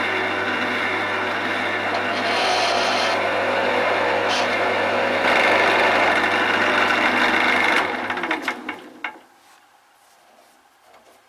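Wood lathe running while a skew chisel takes finishing cuts along a tapered leg, the hiss of the cut swelling and easing with each pass over a steady motor hum. About eight seconds in the lathe is switched off and winds down to a stop, leaving a few light clicks.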